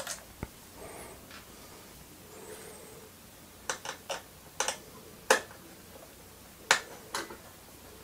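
Small screwdriver working the tiny screws of a motherboard's M.2 heatsink cover: a few short, sharp clicks and taps at irregular intervals, most of them bunched about halfway through and two more near the end.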